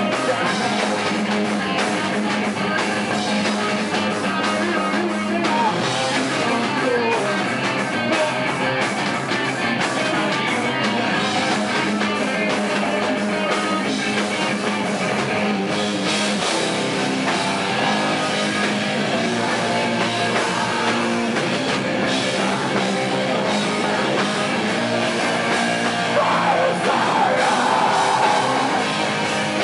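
A live nu-metal band playing loud: distorted electric guitars, bass and a drum kit, with the singer's voice on the microphone. The music runs on without a break and swells slightly near the end.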